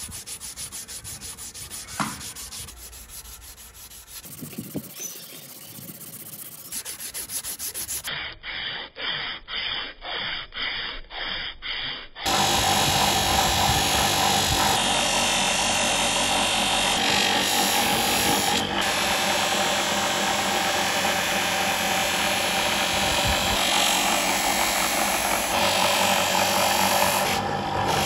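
Sandpaper rubbing on brass by hand, in even back-and-forth strokes. About twelve seconds in, it gives way to the louder, steady run of a motor-driven cloth buffing wheel, with a brass piece pressed against it and polished with wax.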